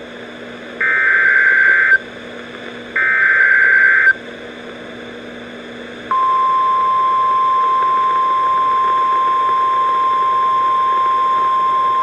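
NOAA Weather Radio EAS alert: the last two of the three SAME header data bursts, each about a second long and a second apart. About six seconds in, the steady 1050 Hz weather-radio alert tone starts; it signals that a warning, here a severe thunderstorm warning, is about to be read.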